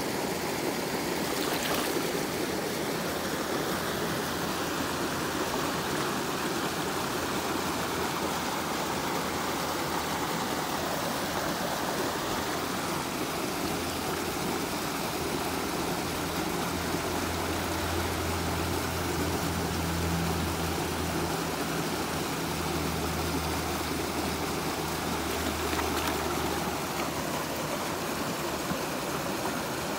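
Shallow rocky stream rushing and trickling steadily over stones. A low steady hum comes in around the middle and fades out before the end.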